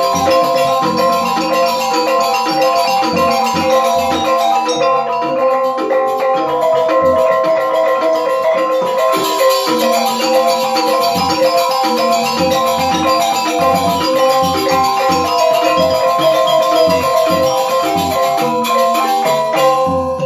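Balinese semar pegulingan gamelan playing: bronze metallophones ring in fast interlocking note patterns over a regular low beat, with a bamboo flute and drum in the ensemble.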